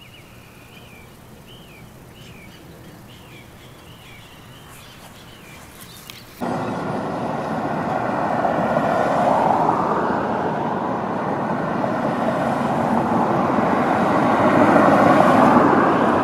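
A bird chirps repeatedly over a quiet background, then the sound cuts abruptly to a steady, much louder rush of street traffic.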